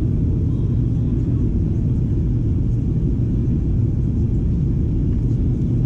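Steady low cabin rumble of a Boeing 737-800 in flight, its CFM56 jet engines and the airflow heard from inside the cabin during the descent through cloud.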